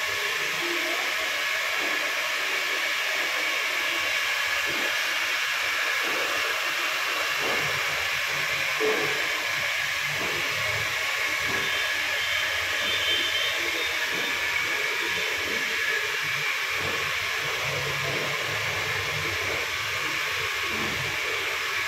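Steady, even whooshing hiss of an electric air blower running, with faint irregular rustling underneath.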